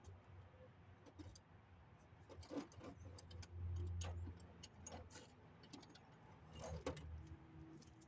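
Faint, irregular metallic clicks and clinks of hand tools, sockets and wrenches being handled while working on a water pump's bolts. A duller low rumble about three and a half seconds in is the loudest part.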